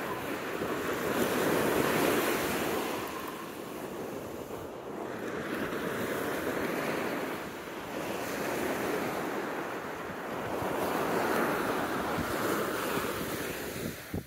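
Ocean surf breaking on a sandy beach, a steady wash of noise that swells and fades every few seconds as each wave comes in.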